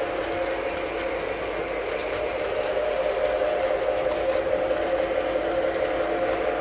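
A Lionel O-scale diesel model locomotive's onboard sound system playing steady diesel engine running sounds through its small speaker, a little louder about halfway through.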